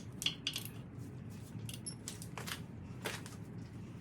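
A few short clicks and scrapes of hand tools being worked on the clutch pressure-plate bolts, over a steady low hum.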